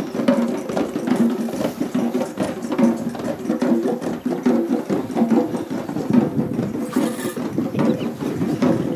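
A group of drummers playing a rapid, steady rhythm of dense, evenly spaced strokes.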